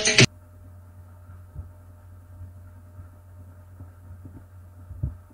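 Background music cuts off just after the start, leaving a faint, steady low hum of recording noise with a couple of soft thumps.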